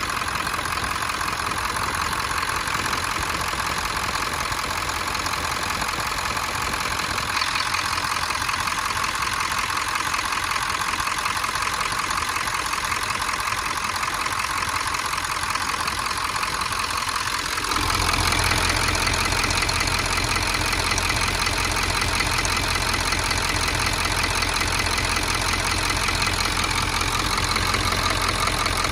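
Ford diesel engine idling steadily with its valve cover removed, the injectors and rocker arms exposed. About 18 s in the sound becomes louder and deeper.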